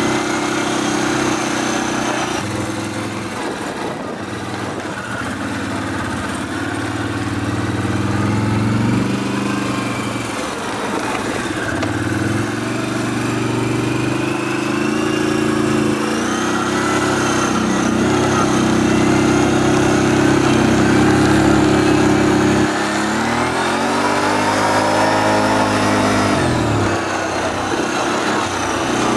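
ATV engine running while riding a dirt trail, its pitch rising and falling with the throttle. A few seconds before the end it drops back, then revs up again.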